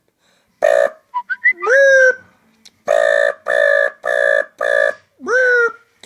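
A boy imitating sirens with his voice: a short call, then a whoop that rises and levels off, then four short, evenly spaced alarm-like tones about two a second, and a last whoop that rises and falls.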